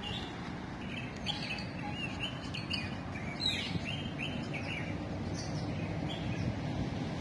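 Small birds chirping in short, quick calls, thickest in the first half, over a steady low background rumble.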